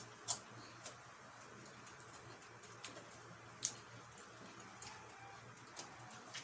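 Eating sounds at a meal: scattered short, sharp clicks and taps, two of them louder, over a faint steady low hum.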